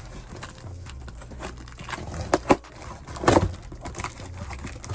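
A package being handled and cut open: rustling with a few sharp clicks, the sharpest about two and a half seconds in, and a louder rustle a little after three seconds.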